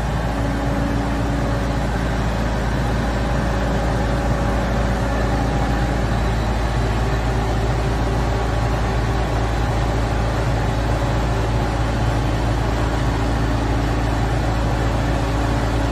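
Engine of a propane-fuelled Hoist FR-series heavy forklift running steadily as the truck drives slowly.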